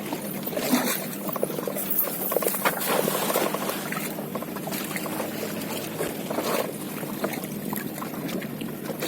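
Water trickling and splashing around a small boat, with scattered small knocks.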